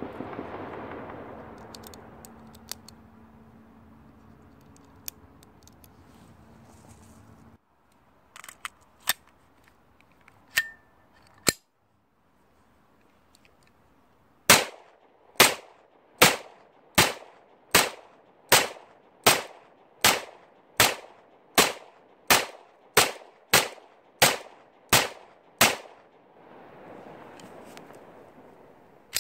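Pistol fired in a steady, evenly paced string of about fifteen loud shots, a little under one a second, each trailing off in a short echo. A few fainter, scattered shots come a few seconds before the string.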